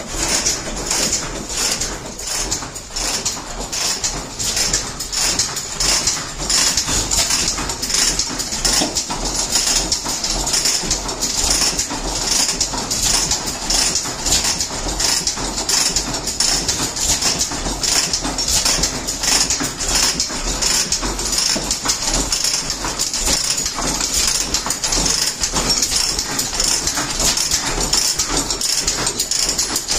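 Antique stationary gas engines running together, their exhaust and ignition firing in a quick, even rhythm of beats over a steady hiss.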